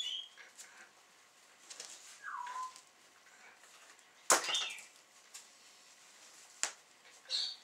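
Gloved hands pulling and peeling the loosened pelt of a fox carcass: intermittent short squeaks, rustles and clicks, with one sharp, loud crack about four seconds in.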